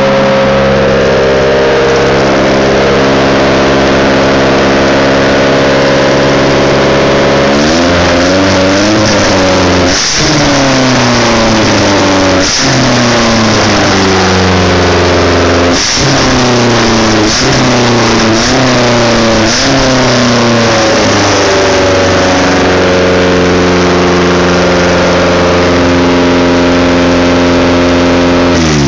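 Ford Zetec 2.0-litre four-cylinder engine from a 1993 Mondeo, running on its factory ECU. It idles steadily, then from about eight seconds in the revs rise and fall through a series of throttle blips, and it settles back to a steady idle. The revs drop away at the very end.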